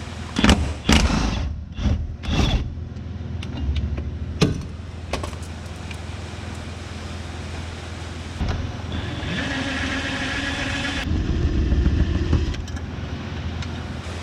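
Metal clanks from tools and a socket on the subframe bolts, then a power tool motor runs for about four seconds as it turns out a bolt, its pitch dropping partway through as it takes up load.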